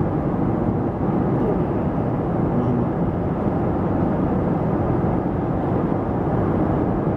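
Steady cabin noise of a Boeing 737 airliner in cruise, heard inside the cabin: an even, low rush of engine and airflow noise.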